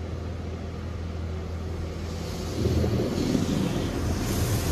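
WashWorld Razor Edge touch-free car wash spraying foam and water onto the car, heard from inside the cabin over a steady low hum. The spray gets louder a little past halfway through, with a fuller rumble and a brighter hiss.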